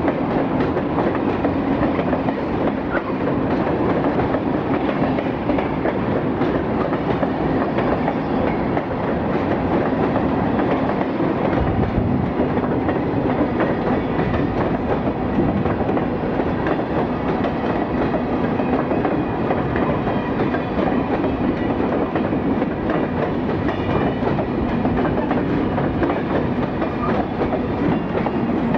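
Freight train of open-top gondola cars rolling past close by: a steady rumble of steel wheels on rail with a clickety-clack of wheels over the rail joints.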